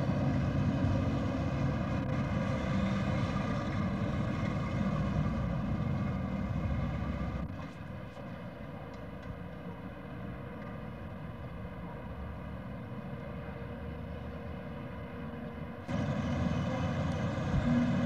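Steady engine-like drone of machinery with a constant hum. It drops quieter about halfway through and comes back up near the end.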